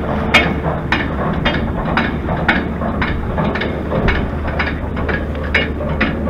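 A bicycle in motion clicking regularly about twice a second, over a steady rumble of tyres on the road.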